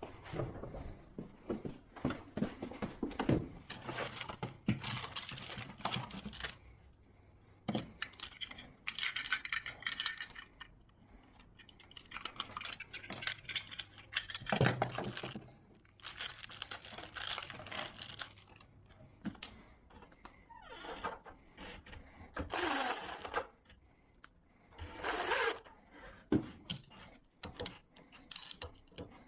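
Irregular clicks, clinks and short scrapes of small metal lock hardware being handled and fitted, in uneven bursts with short pauses between.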